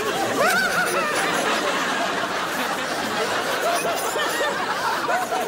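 Studio audience laughing together, many voices at once, a steady wave of laughter after a punchline.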